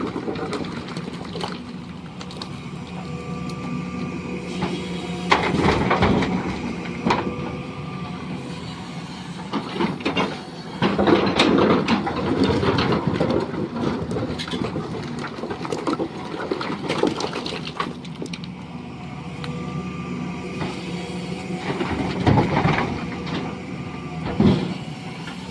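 Heavy stone-crushing and loading machinery running steadily, with rocks clattering and knocking in loud spells about five seconds in, about ten seconds in and again near the end.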